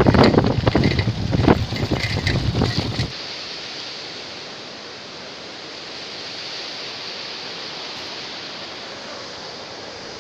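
Wind buffeting the microphone in irregular gusts for about three seconds. Then, after a cut, a steady even rush of falling water from a waterfall.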